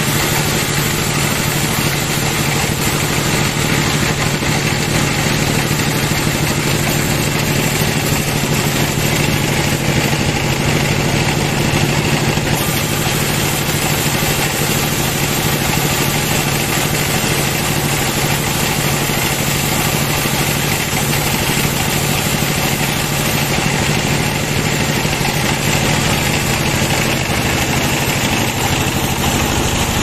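Band sawmill running steadily as its blade rips lengthwise through a log, the drive's steady hum mixed with the saw's cutting noise.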